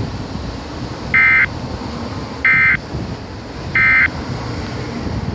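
Three short, buzzy bursts of emergency alert digital data tones (SAME code), each about a third of a second long and spaced about a second and a quarter apart, over a steady background hiss.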